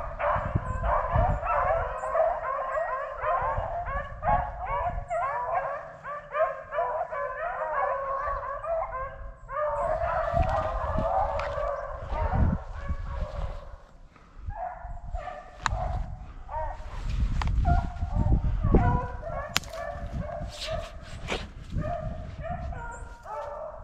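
A pack of rabbit hounds baying in full cry, many voices overlapping almost without pause: the sign that they have jumped a rabbit and are running its trail. A low rumble and scattered knocks sit beneath, mostly in the second half.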